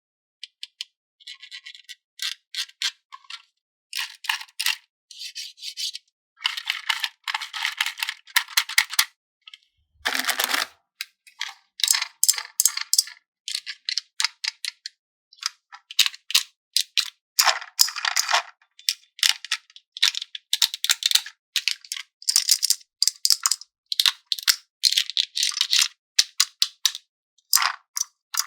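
Plastic packaging and toy pieces being handled in short, irregular crinkling and rattling bursts, with one duller knock about ten seconds in.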